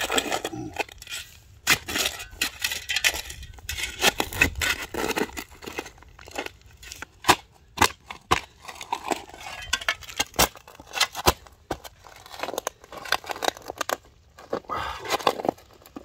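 Pointed steel shovel digging into dry, stony soil: repeated gritty scraping and crunching as the blade is driven in and earth is levered out, with many sharp clicks and knocks along the way.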